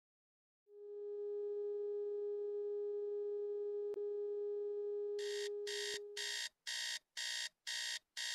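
A steady electronic tone comes in under a second in and holds for about five seconds, then gives way to loud, rapid alarm beeping at about two beeps a second.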